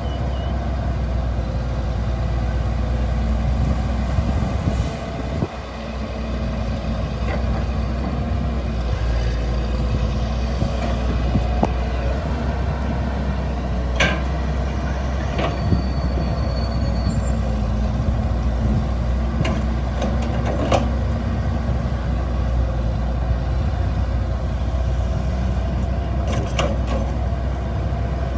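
Excavator's diesel engine running steadily under load, with a few sharp clanks partway through and a brief dip in level about five seconds in.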